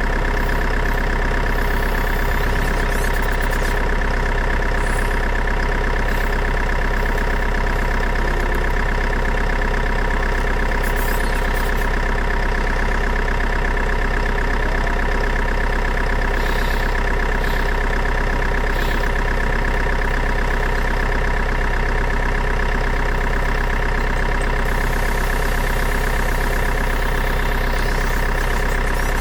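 A steady engine-like drone with a constant high whine over it. It runs evenly throughout with no revving.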